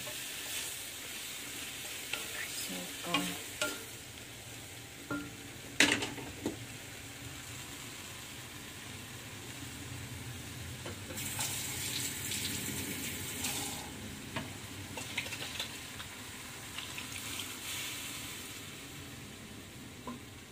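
String beans and pork belly sizzling as they stir-fry in a stainless steel wok over a gas flame, with a utensil stirring and scraping through them and knocking against the pan now and then. The loudest knock comes about six seconds in.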